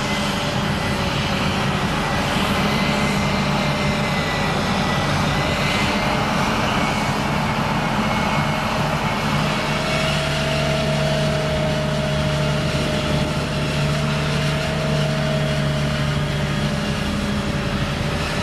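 Forage harvester chopping maize alongside a Vredo self-propelled silage trailer, their heavy diesel engines running in a steady drone with a steady high whine over it.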